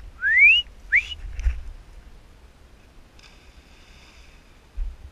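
Two short whistles, each sliding upward, in the first second. About three seconds in, a splash follows as the dog plunges into the pond.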